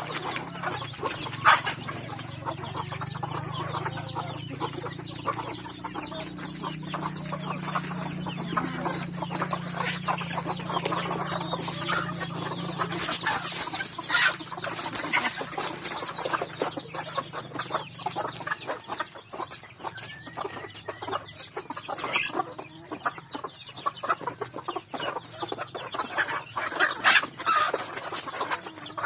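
A flock of chickens feeding: constant high peeping from young birds over hens clucking, with scuffling and an occasional flap of wings.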